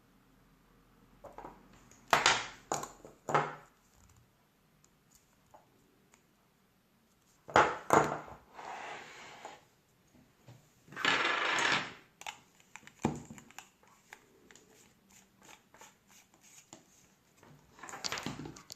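Small hard parts being handled on a work surface: sharp clicks and knocks, two longer scraping noises in the middle, then a run of light ticks.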